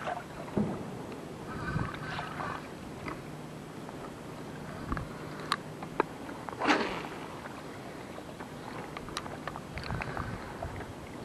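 Water lapping against a small fishing boat's hull on choppy water, with scattered light knocks and clicks, a faint steady hum, and a louder swish about two-thirds of the way through.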